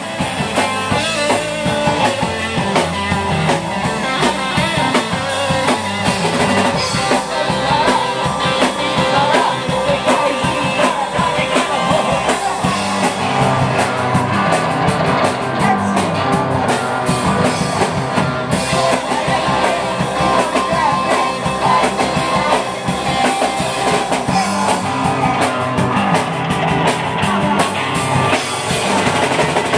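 Rock band playing live: distorted electric guitars through amplifiers over a full drum kit, continuous and loud.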